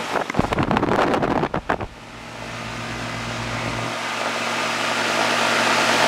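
Air-conditioning condenser unit running: a steady low electrical hum from the compressor under a rush of air that grows gradually louder from about two seconds in. Handling clatter and knocks come over the first two seconds.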